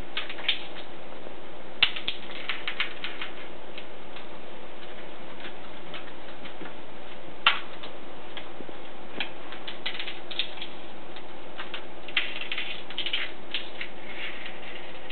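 Scattered clicks and taps of cats' paws and claws scrabbling on a hardwood floor while chasing a wand toy mouse. There are two sharper knocks about two seconds and seven and a half seconds in, and a quick flurry of taps near the end.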